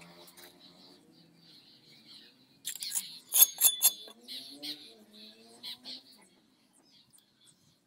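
A quick run of sharp clicks and scrapes, a steel bricklaying trowel striking and scraping brick and mortar, over a faint man's voice in the background.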